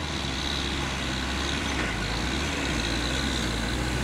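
REVA armoured personnel carrier's Cummins turbo diesel engine running steadily as the heavy vehicle drives over rough ground off-road.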